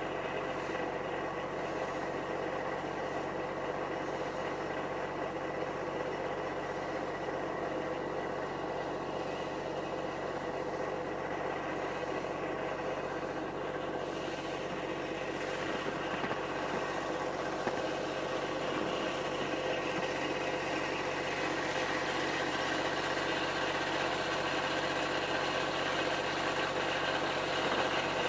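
An engine running steadily at an even speed: a constant hum with steady tones, getting slightly louder in the second half.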